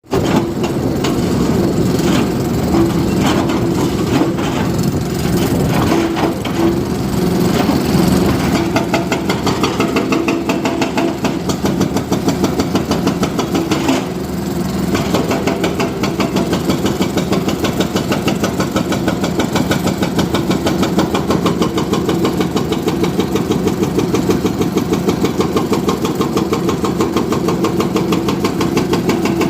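Heavy diesel engine of construction machinery or a tractor running, uneven at first and settling after about eight seconds into a fast, even pulsing beat.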